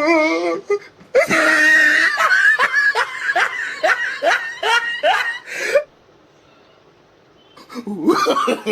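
A person laughing hard: a run of about eight or nine short rising "ha" sounds lasting some five seconds. A short lull follows, then a voice with a wavering pitch starts near the end.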